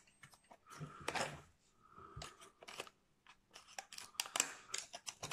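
Small cardboard box and clear plastic lure packaging being handled and opened by hand: scattered light clicks, crinkles and rustles, busiest about a second in and again near the end.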